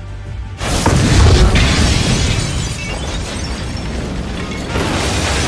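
A sudden explosion of thrown mercury fulminate under a second in: a deep boom as windows blow out, followed by shattering glass and debris raining down for several seconds.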